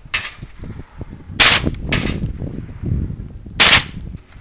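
Two shots from an AR-15-style .22 rimfire rifle, about two seconds apart, with fainter sharp cracks in between.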